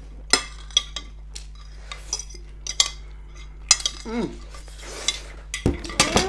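Cutlery clicking and scraping against plates in quick, irregular strokes as chow mein is eaten fast, with a couple of short voice sounds around four seconds in and near the end.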